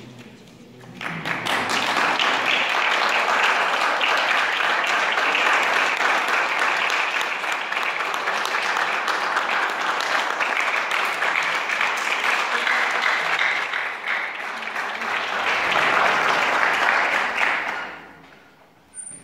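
Audience applauding, starting about a second in, holding steady, and dying away near the end.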